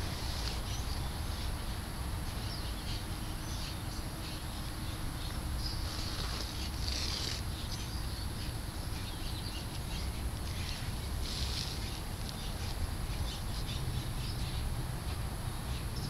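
Outdoor ambient noise: a steady low rumble with scattered brief, faint high chirps throughout.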